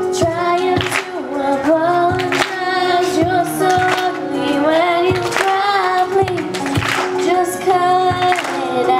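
A young girl singing a song into a handheld microphone over recorded backing music with a steady beat.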